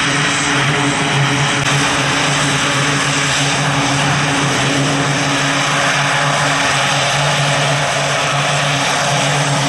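Grumman E-2C Hawkeye's two Allison T56 turboprop engines running steadily on the ground: a loud, even propeller drone with a steady low hum under a rushing engine noise.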